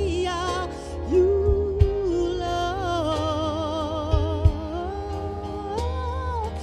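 Slow gospel singing: a solo singer holds long, wavering notes with wide vibrato over a steady band accompaniment with sustained low bass notes. A few drum hits fall about a second and a half in and again around four seconds in.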